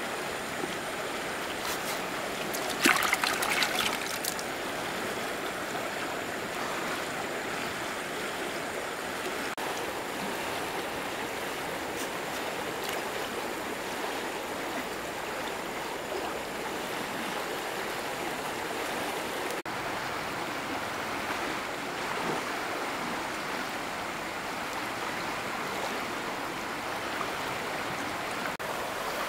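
River water flowing steadily past the bank, with a short burst of close crackling rustle about three seconds in.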